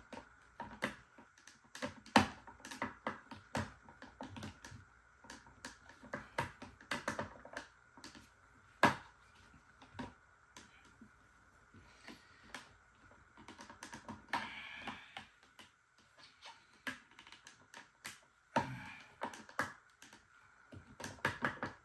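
Irregular sharp plastic clicks and taps from a Mercedes SL550's side mirror housing as it is pried and worked at by hand, its clips and tabs resisting. Two short scraping rustles break in, one about two-thirds through and one near the end.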